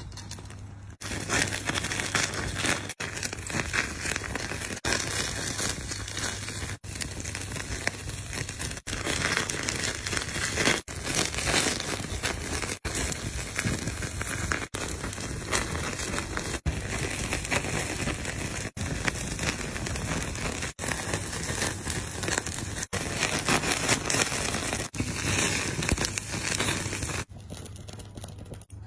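Open flames burning over a pot of coarse salt and peppercorns, a dense crackling hiss broken by brief gaps about every two seconds. It falls away near the end.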